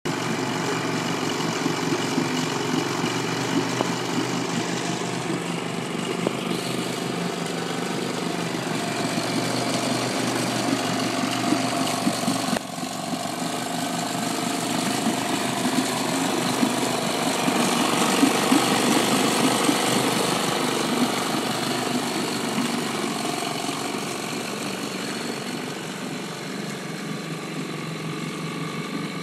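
A 1960 Johnson QD-21 Seahorse 10 hp two-stroke twin outboard running steadily. About twelve seconds in the sound drops suddenly, then swells and slowly fades again.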